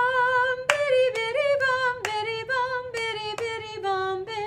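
A woman singing solo, unaccompanied, a string of short notes on nonsense syllables like 'bim bum biddy', the melody stepping downward in pitch.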